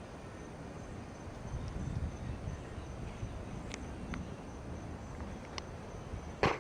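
Insects trilling steadily over a low, uneven rumble. A few faint clicks come in the middle, and one sharper, louder click comes just before the end.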